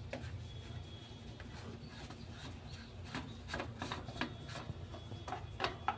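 Plastic filter cap on an auxiliary air compressor being worked open by hand: a scatter of small scrapes and clicks, strongest in the second half, over a low steady background hum.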